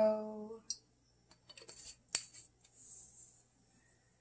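Faint clicks and taps of a glass hot sauce bottle being shaken over a plate and set down on the counter, with one sharp click about two seconds in.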